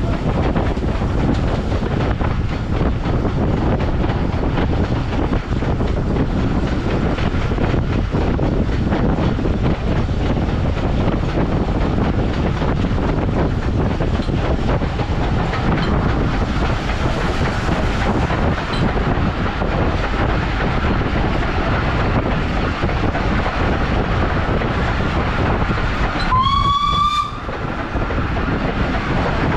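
Train running along the line, a steady rumble and rattle of the carriages. Near the end a single short whistle blast sounds for about a second, its pitch rising slightly.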